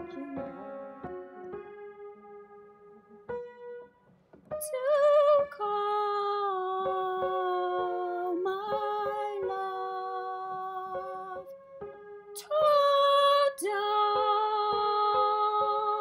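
A few piano notes ring and fade, then a woman's voice sings long held notes with vibrato, swelling louder about five seconds in and again near the end.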